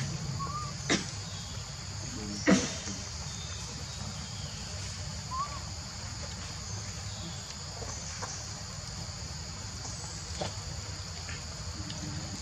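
Steady, high-pitched chorus of insects, with a low steady rumble underneath. Two sharp knocks cut through about a second in and again, louder, about two and a half seconds in, and there are a couple of faint short chirps.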